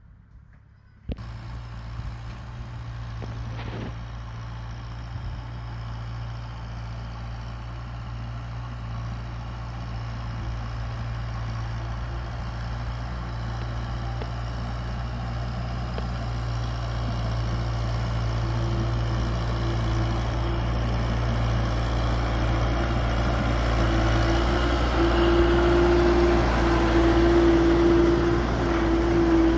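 Kubota M6040 tractor's diesel engine running steadily under load while it pulls a disc plough through soil. The sound starts suddenly about a second in and grows steadily louder as the tractor comes close. A steady whine joins it in the second half.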